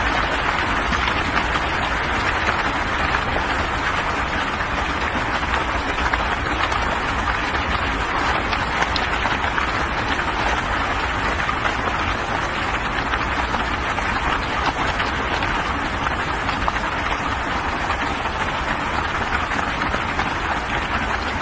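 Steady, unbroken rush of water from floodwater running fast over a road, with no change in level.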